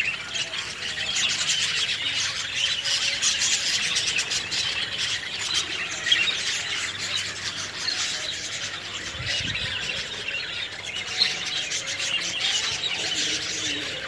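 Dense, unbroken chattering and squawking of a crowded mixed roost of egrets and cormorants, many birds calling at once, with a few louder calls standing out.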